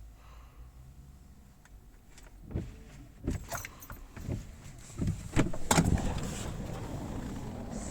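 Car keys jangling with a run of sharp clicks and knocks, then a steady rushing noise from about halfway through.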